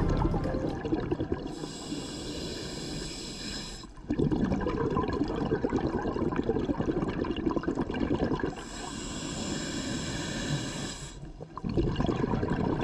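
Scuba diver breathing underwater through a regulator: a hiss of about two and a half seconds as air is drawn in, then several seconds of bubbling as exhaled air escapes, the cycle repeating twice.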